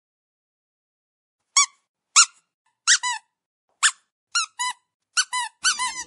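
Squeaky dog toy being squeezed: short high-pitched squeaks that start about a second and a half in, then come faster and often in pairs toward the end.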